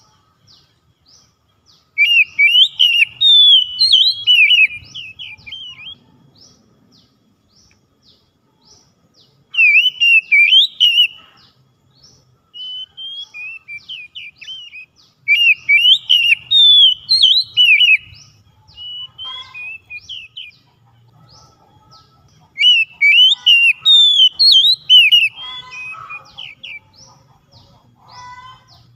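Oriental magpie-robin singing: four loud bursts of quick, varied whistled notes, each a couple of seconds long, with softer, quieter phrases in between.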